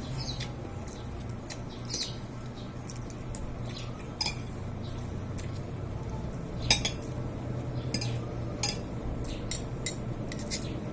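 Eating utensils clicking and clinking against dishware in scattered, irregular taps over a low steady hum.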